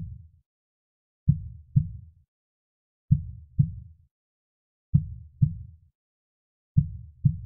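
A soft heartbeat, its lub-dub pairs of low thumps repeating slowly, about every two seconds, with silence between beats.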